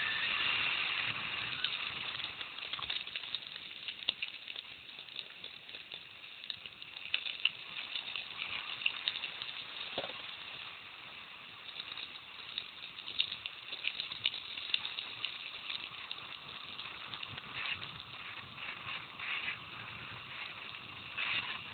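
Mountain bike rolling downhill on a gravel road: a steady hiss of tyres on loose gravel with many small rattles and clicks.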